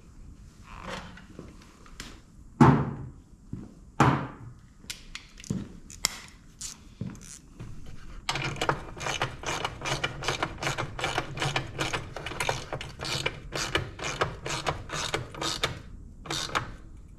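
Hand ratchet wrench clicking rapidly and steadily, about four or five clicks a second, as a bolt is run in and snugged on a motorcycle's rear fender mount. Two sharp metallic knocks come a few seconds before the ratcheting starts.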